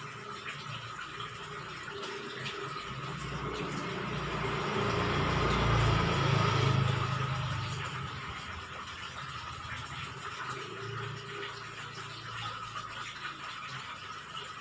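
A motor vehicle passing by, swelling to its loudest about six seconds in and fading away by about eight seconds, over a faint steady background hum.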